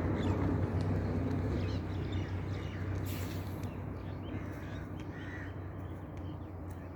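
Harsh animal calls, caw-like, with a short hissing burst about three seconds in, over a steady low hum.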